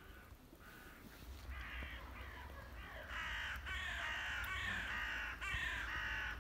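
Several hooded crows cawing, their calls overlapping. The calls are faint at first, grow louder from about a second and a half in, and come thickest over the last three seconds.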